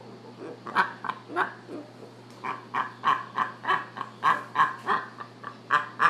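Hyacinth macaws making a series of short, sharp calls, a few scattered at first, then a steady run of about three a second.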